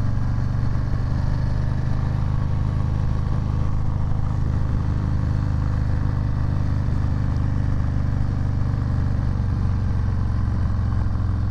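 Harley-Davidson Low Rider S's Milwaukee-Eight 114 V-twin running at a steady cruise through a free-flowing Two Brothers 2-into-1 exhaust, heard from the rider's seat. The engine note holds even, with no revving.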